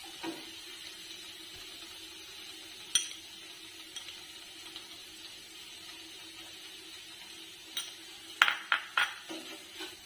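Steel spoon and wooden spatula knocking and scraping in a non-stick kadai of stir-fried thoran: a single knock about three seconds in and a quick run of knocks near the end, over a faint steady hum.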